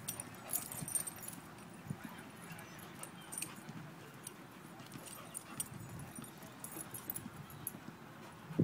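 A German shepherd and another dog at play: faint scuffling of paws and soft dog sounds, with no loud barking.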